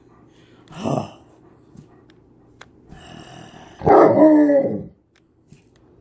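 Alaskan malamute vocalizing: a short sound about a second in, then a longer, louder one of about a second, about four seconds in, whose pitch bends down.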